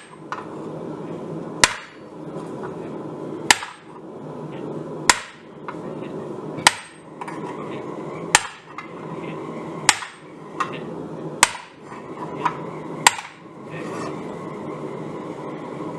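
Hammer blows on hot steel at the anvil: eight heavy strikes at a steady pace of about one every second and a half, each ringing briefly, with a few lighter taps between some of them.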